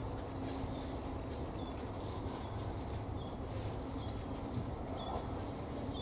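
Faint, short, high chirps from a small bird, repeating every second or so over a low steady hum.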